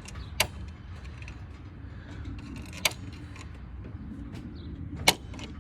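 Three sharp clicks and knocks from hand work on a radiator hose and its clamp, over a steady low hum.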